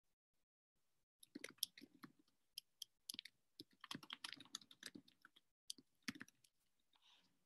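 Faint typing on a computer keyboard: a run of quick, irregular key clicks that starts about a second in and stops at about six and a half seconds.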